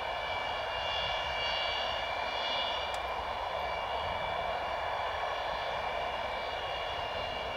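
Antonov An-124-100's four Progress D-18T turbofans running at taxi power: a steady engine noise with a high-pitched whine of several held tones.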